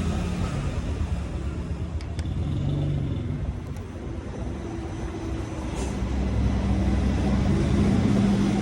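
Low rumble of a motor vehicle that grows louder near the end, with a few faint clicks.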